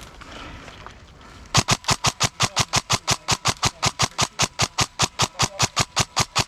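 Airsoft gun firing a long string of shots, evenly spaced at about five a second, starting about a second and a half in and continuing for roughly five seconds.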